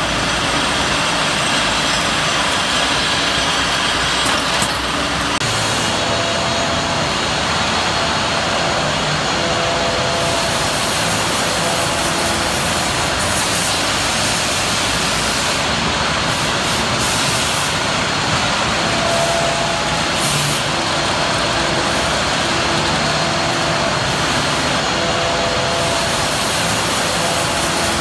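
Steady machine-shop din of machine tools running: a dense, even noise with faint tones that come and go.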